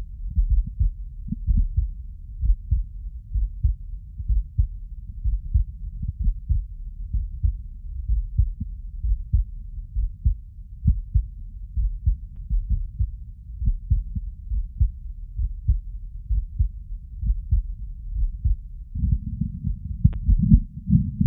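Heartbeat heard through a stethoscope chest piece: a steady, rhythmic run of deep, muffled thuds. Near the end the sound suddenly becomes louder and fuller, with a brief click of handling noise a second later.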